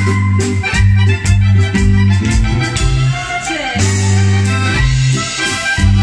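Live dance band music led by a button accordion, over a low bass line and drums keeping a steady beat.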